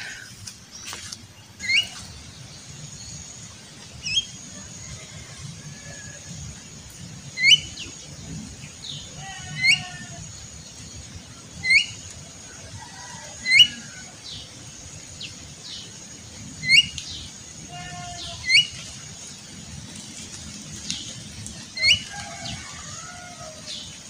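Javan myna calling: short, sharp rising chirps repeated every two to three seconds, with a few lower chattering notes between them. A faint steady high tone runs behind most of it.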